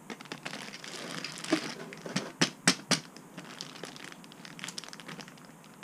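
Plastic bags of model truck kit parts crinkling and rustling as they are handled, with a few sharp crackles about two to three seconds in.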